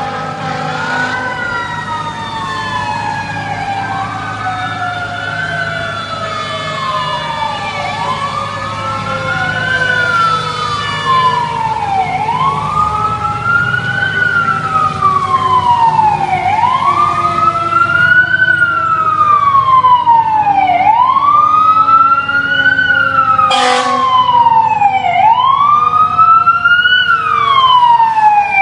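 Fire truck siren on a slow wail, rising and falling about every four and a half seconds and growing louder as the truck approaches. A fainter siren tone slowly falls underneath.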